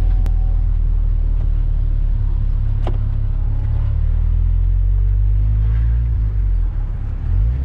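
Swapped-in 2.5-litre four-cylinder engine of a Mazda MX-5 NC running at a steady low drone, heard from inside the open cockpit. The note briefly dips near the end, then climbs again.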